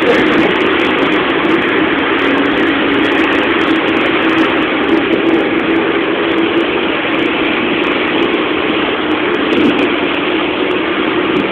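Motor vehicle engine running steadily with road and wind noise, heard from inside the moving vehicle: an even, unbroken drone with a low hum throughout.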